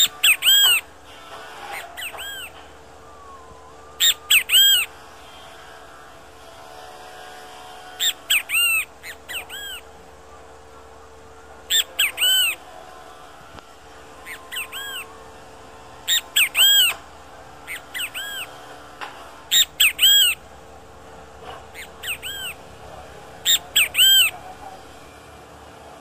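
Great kiskadee (bem-te-vi) calling loudly: short phrases of two or three arched notes, repeated about every four seconds.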